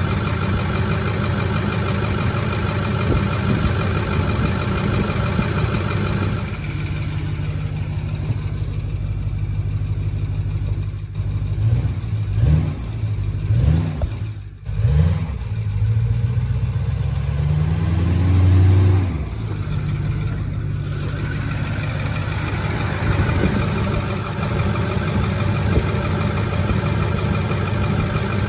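Ford 6.4 L Power Stroke V8 diesel idling, left running to bleed air out of the fuel system. Through the middle the sound shifts, with a few brief rises and falls in engine pitch.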